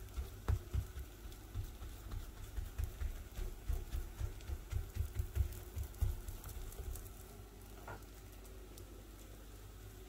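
Fingers patting and pressing a semolina harcha in a frying pan to shape it: irregular soft taps with dull thumps, about two or three a second, easing off about seven seconds in.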